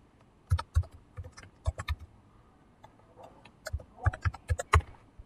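Computer keyboard keystrokes as a word is typed, in two quick runs of clicks with a pause of about a second and a half between them.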